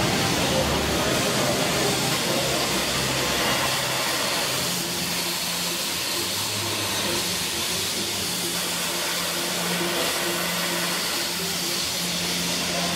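Steady hiss of steam venting from the open cylinder cocks of narrow-gauge steam locomotive No. 340, an 1881 Baldwin, as it rolls slowly forward.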